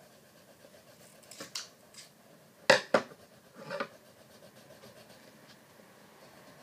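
Pencil scratching on paper as a small circle is shaded in dark, with a few short, sharper scrapes or knocks through the middle, the loudest two close together about three seconds in.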